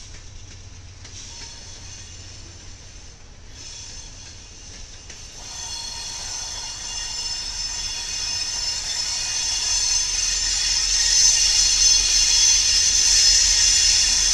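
Freight train's covered hopper cars rolling through a curve, wheels squealing in a set of steady high tones over a low rumble; the squeal swells from about five seconds in and keeps getting louder.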